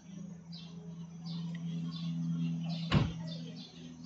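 Small bird chirping repeatedly, about two short high chirps a second, over a steady low hum that fades near the end. A single sharp knock about three seconds in is the loudest sound.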